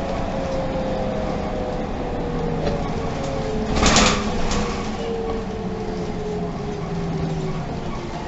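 City bus running, heard from inside: a steady engine and road rumble with engine tones that slowly fall in pitch, and a short, louder burst of noise about four seconds in.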